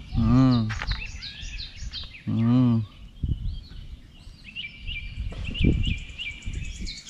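Outdoor birdsong: birds chirping in quick repeated phrases. Over it a man's deep voice calls out twice, short and loud, about two seconds apart near the start, and a few dull low thuds follow later.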